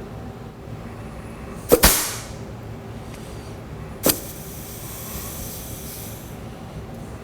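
Compressed air from a blow gun fed into a 4L60E transmission's low/reverse clutch passage for an air check: a sharp blast about two seconds in that fades off as a hiss, then a second blast about four seconds in followed by a fainter hiss lasting about two seconds.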